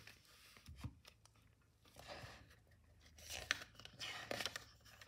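Pages of a thin paperback picture book being turned by hand: faint paper rustling with a few crisp flicks, busiest in the second half.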